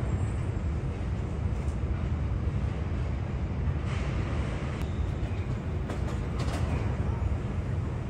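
Steady low rumble of city traffic and trains, with a few faint knocks about halfway through.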